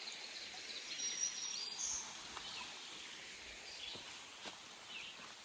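Quiet woodland ambience: a faint, steady hiss from a small, shallow brook trickling over rocks, with a brief high bird chirp about a second and a half in.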